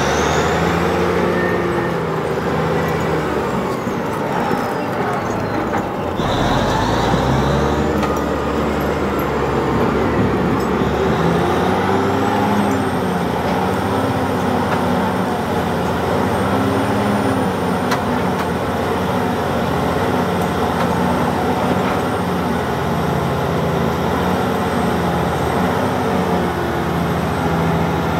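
Clark Michigan 475B wheel loader's big diesel engine working under load, its pitch rising and falling repeatedly as the loader pushes its bucket into a gravel pile, with a high thin whine held above it.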